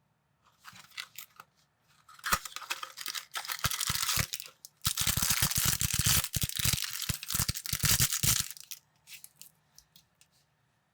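A crinkly plastic parts bag of building bricks being torn open and handled: a dense crackling rustle with sharp snaps that lasts about six seconds, starting about two seconds in.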